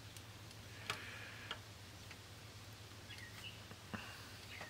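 A few faint, sharp ticks of a wooden cotton swab tapping and rubbing on a CD changer's plastic laser pickup sled as old grease is wiped off it, over a low steady hum.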